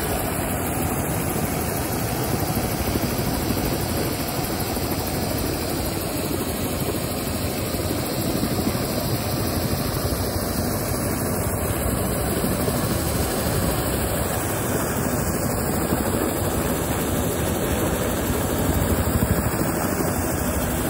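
Crop-dusting helicopter, a turbine-powered Bell 206 JetRanger, hovering and then flying off low: steady rotor and turbine noise, swelling slightly near the end.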